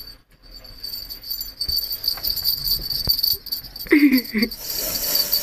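Light jingling and rustling in quick irregular bursts as kittens bat at and tussle with a feather teaser toy.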